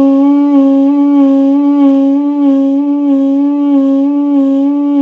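A duduk holding one sustained note with an even, rhythmic vibrato at eighth-note speed, the pitch wavering steadily up and down.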